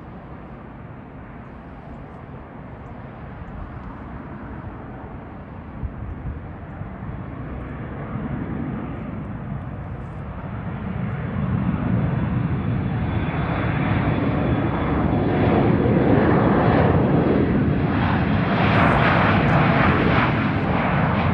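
Embraer E175 airliner's twin GE CF34 turbofans at takeoff thrust during the takeoff roll. The jet noise is heard at a distance and grows steadily louder, becoming loudest in the last third.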